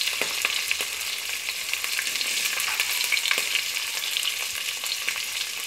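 Curry leaves and green chillies sizzling and crackling in hot oil with mustard seeds, cumin and dals: the tempering (popu) for upma frying. The sound is a steady sizzle with many small pops.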